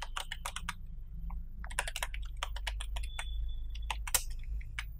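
Computer keyboard being typed on in quick runs of key clicks, with a pause of about a second near the start. A low steady hum sits underneath.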